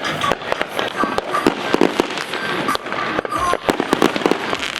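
Fireworks going off in rapid, irregular succession: many sharp bangs and pops over a continuous crackle.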